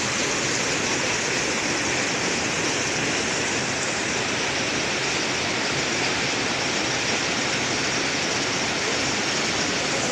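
Mountain waterfall rushing steadily over boulders: an even, unbroken hiss of white water.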